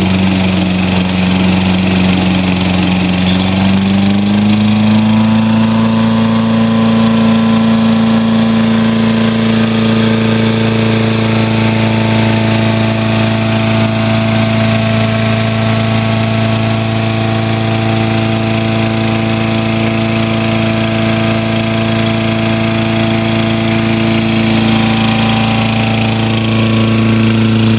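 Tecumseh 6.5 hp engine of a Toro Recycler lawn mower running steadily on a newly fitted aftermarket carburetor. Its speed picks up slightly about four seconds in, then holds even.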